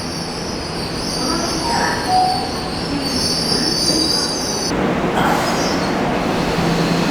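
Train running through the station with a loud high-pitched squeal, which cuts off suddenly about five seconds in, over the steady rumble of the train.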